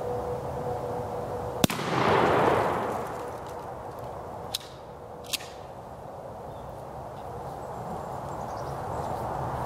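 A single 12-gauge shotgun shot, Winchester Super X turkey load from a Winchester 1300 pump-action, about two seconds in. Its report rolls away for about a second. Then come two sharp clicks a little under a second apart as the pump is worked.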